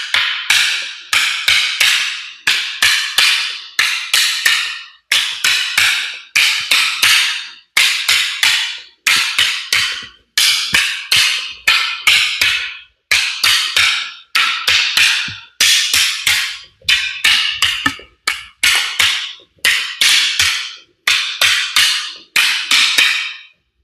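Two pairs of arnis sticks clacking against each other in a continuous sinawali partner drill. Rapid clusters of sharp wooden strikes come in a steady rhythm, broken by short gaps about every second.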